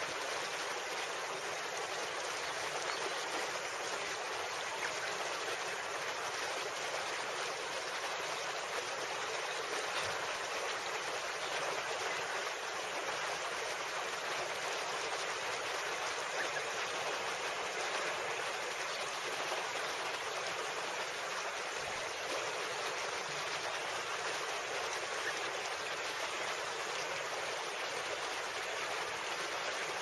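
Steady rushing of river rapids: fast water running over rocks in an even, unbroken hiss.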